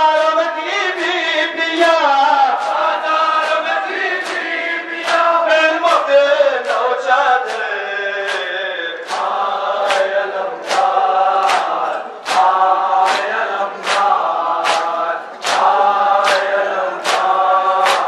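Men chanting a nauha (Shia mourning lament) together in a sung refrain, with rhythmic hand slaps on bare chests (matam) keeping time about twice a second. The slaps grow sharper and more even in the second half.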